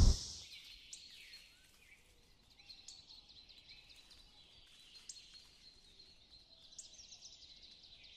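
Faint woodland ambience: scattered short bird chirps over a thin, steady high insect hum. A louder insect drone fades out in the first half second.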